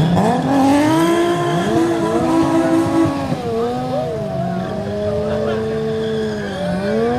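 Several vehicle engines revving up and down at once with tyre squeal, as a motorcycle and cars do burnouts and donuts, their pitches rising and falling over one another.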